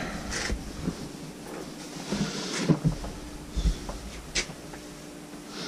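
Handling noises: rustling with a few light knocks and low thumps as items are moved about and a T-shirt is laid out on a table, over a faint steady hum.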